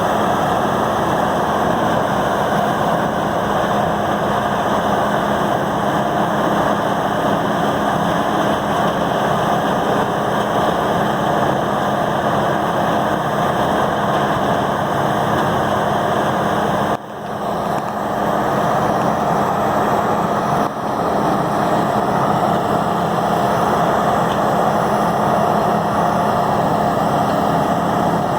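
Peterson 5710D horizontal grinder running hard under load: the loud, steady drone of its 1125 hp diesel engine and grinding mill. The sound drops out suddenly about two-thirds of the way through and quickly comes back, with a smaller dip a few seconds later.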